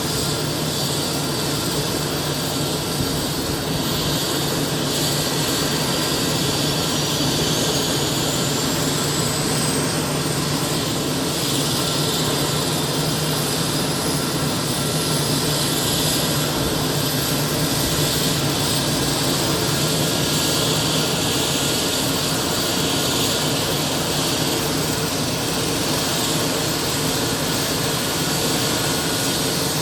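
Airbus EC135 twin-turbine helicopter running steadily on the ground, with a high turbine whine that rises in pitch between about five and eleven seconds in.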